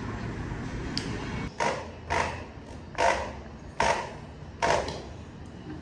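Five short knocks against a wooden crib frame, about one every 0.7 seconds, starting about a second and a half in, while caster wheels are fitted to the crib's legs.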